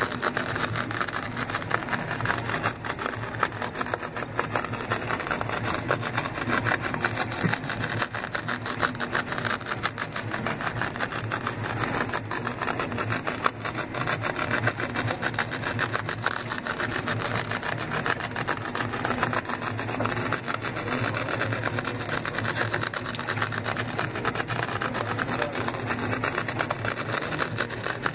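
Stepper motors of a CoreXY sand-drawing CNC machine running steadily as it traces a pattern, a continuous mechanical whirr with a fine, rapid chatter.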